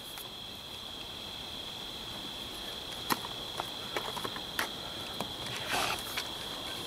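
A steady, high-pitched insect drone from the surrounding woods, with a few light clicks and taps from gear being handled at the bench.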